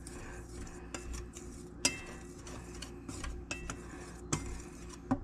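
Wire whisk stirring dry flour in a stainless steel mixing bowl: a soft steady scratching, with several sharp clinks of the whisk against the metal side, a few of them ringing briefly.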